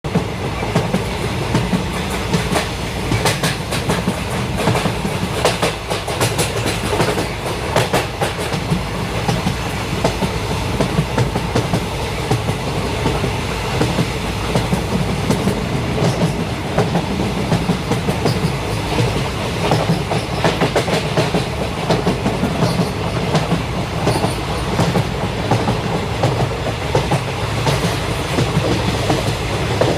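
Indian Railways Tejas Express train running at speed: a steady rumble with wheels clicking over the rail joints throughout.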